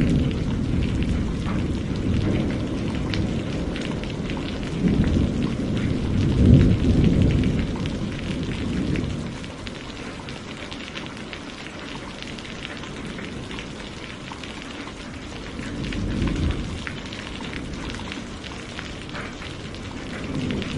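Steady rain falling with many small drop ticks, under rolling thunder: low rumbles swell about five seconds in, peak around six to seven seconds, then fade, and roll in again more softly around sixteen seconds.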